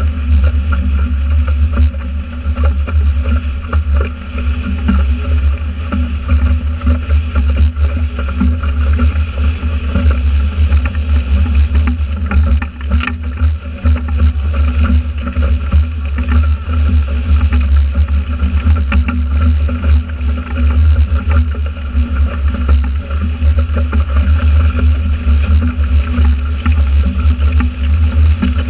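Wind buffeting the camera microphone and water rushing and spraying past the hull of a Catri 24 foiling trimaran sailing at about 20 knots: a steady heavy rumble with a constant hiss and some faint steady tones over it.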